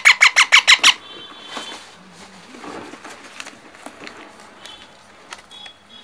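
A parrot chick's rapid, repeated squawking calls, about six a second, stopping about a second in; afterwards only a few faint short chirps and small clicks.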